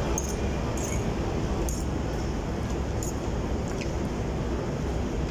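Steady low rumble of restaurant room noise, with a few faint light clicks of cutlery against dishes.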